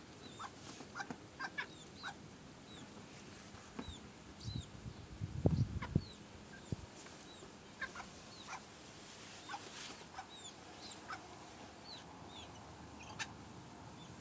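Chicks peeping in many short, high calls that bend in pitch, scattered throughout, with some clucking. A brief low rumble about halfway through is the loudest sound.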